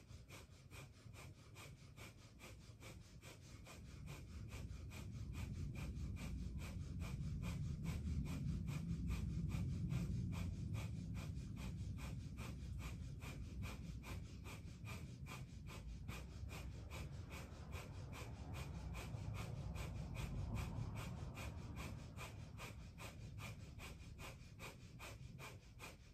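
Two people doing Kundalini breath of fire: rapid, evenly paced breaths pumped through the nose, with a sharp exhale on each stroke. It grows louder a few seconds in and eases again near the end.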